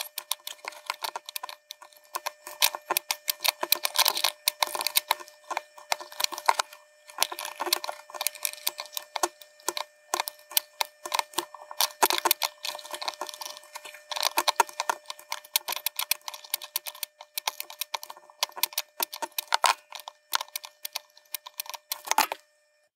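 Dense, rapid clicking and tapping from hand-soldering LED leads on a circuit board with a soldering iron and solder wire, over a steady hum of several tones. It starts and stops abruptly.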